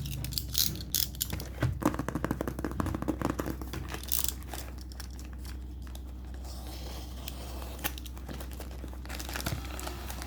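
Packaging being crinkled and torn open by hand to unwrap a manga volume, with dense crackling for the first few seconds, then quieter, scattered rustles and clicks.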